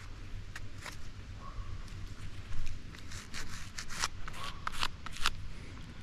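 Digging and handling in soil and leaf litter while recovering a detected target: a string of crunches and scrapes, busiest in the second half.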